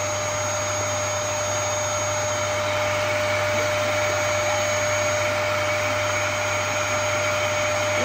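Dyson cylinder vacuum cleaner running steadily: a constant motor whine over the hiss of rushing air.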